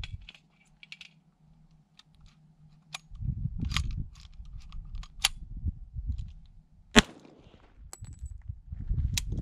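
A single .45 ACP pistol shot from a 1911 about seven seconds in, ringing out briefly, preceded by a few sharp metallic clicks of the pistol being handled.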